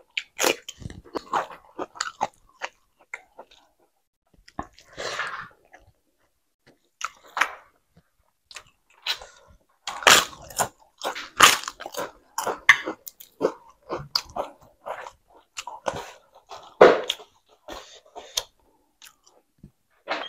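Close-miked chewing and crunching of food, with a dense run of loud, crisp crunches about halfway through as a fried papad is bitten and chewed.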